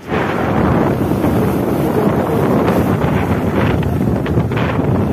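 Loud wind rushing over the microphone of a moving motorcycle, with a few sharper buffets in the second half.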